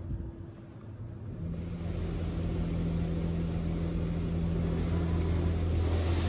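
WashWorld Razor touchless car wash machinery heard from inside the car's cabin while coloured foam covers the windows. A steady low hum comes in about a second and a half in and slowly grows louder, over a hiss of spray.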